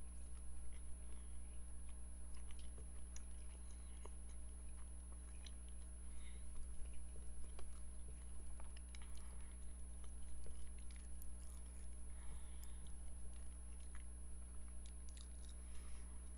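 Faint chewing of a mouthful of coconut curry chicken, with scattered small clicks over a steady low hum.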